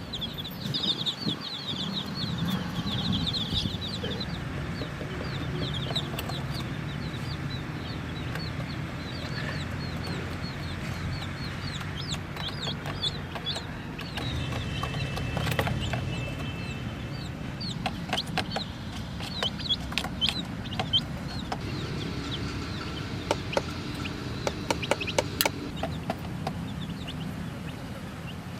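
A group of baby chicks peeping, with many short, high chirps one after another. Scattered sharp clicks and taps come through, mostly in the second half.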